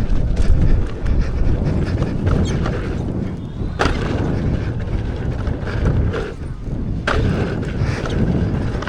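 Wind buffeting the microphone as an electric unicycle rides fast down a rough dirt trail, with a constant low rumble and rattles from the bumps. Sharp knocks stand out a little under four seconds in and again about seven seconds in.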